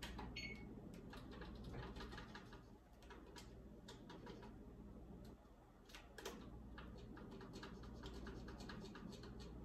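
Light, irregular tapping and clicking of buttons as a kitchen timer is set, with one short electronic beep about half a second in.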